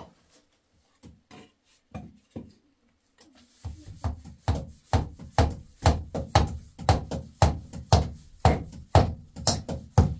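Hammer blows on a wooden ceiling beam, driving nails to fix a plastic sheet: a few scattered taps, then steady blows about three a second from about four seconds in.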